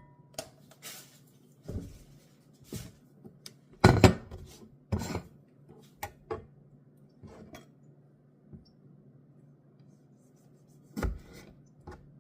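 Kitchen utensils knocking and clinking against dishes in scattered strokes, the loudest about four seconds in, over a faint steady low hum.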